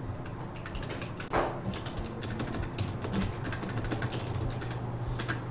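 Computer keyboard being typed on, irregular key clicks with one louder click about a second and a half in, over a low steady hum.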